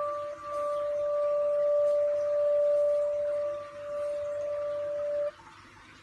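Crystal singing bowl with a crystal handle ringing on one clear, steady tone near D of the fifth octave, with a fainter overtone an octave above. The ring dips briefly twice and then stops abruptly about five seconds in.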